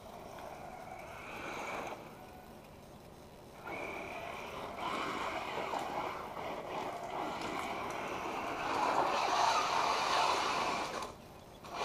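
Electric 1/8-scale RC truck with a Castle Sidewinder 8th 2200 kV brushless combo running on a gravel driveway: a high motor whine over tyres scattering gravel. It is faint while the truck is far off, grows loudest as it speeds close about nine seconds in, and drops away briefly near the end.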